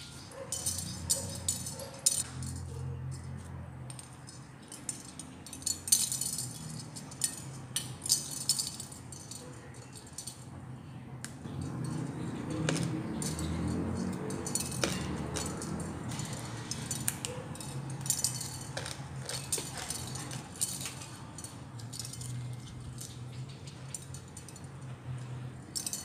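A shell wind chime clinking and jangling irregularly in the breeze, loud and close. Near the middle, chewing as fresh pea eggplants and herbs are eaten.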